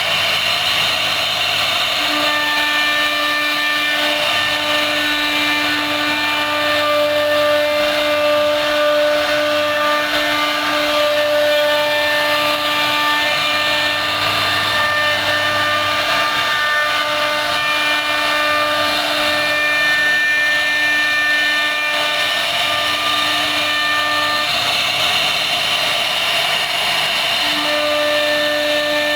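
CNC router spindle running at high speed and cutting into wood, a steady high whine over a continuous rushing hiss, with the whine dipping and returning every few seconds as the cutter moves through the carving.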